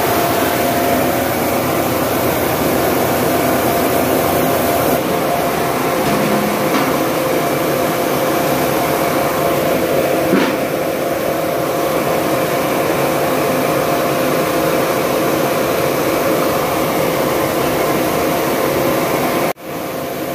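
Corn mill running, a loud, steady machine drone with an even hum, briefly cutting out near the end.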